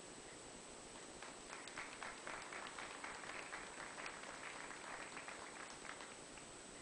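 A small audience applauding, the clapping starting about a second in and dying away near the end.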